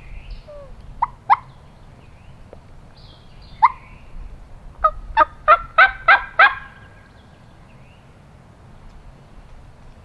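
Turkey yelping: a couple of short sharp notes about a second in and another a few seconds later, then a run of about seven loud yelps in quick succession.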